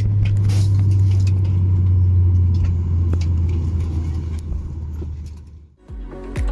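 Steady low hum inside a parked Boeing 737-8200 cabin, with scattered clicks and rattles. The hum fades out about five seconds in, and electronic music with a beat starts near the end.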